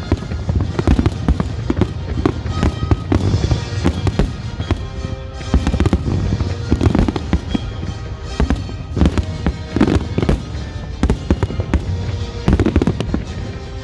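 Aerial fireworks bursting in quick succession: deep booms and sharp bangs over a constant rumble, with crackling. Music plays under the explosions.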